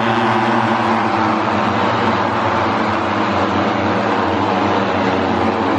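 A pack of Moto3 racing motorcycles, 250 cc single-cylinder four-strokes, passing at race speed. Their engines blend into one loud, steady, continuous note.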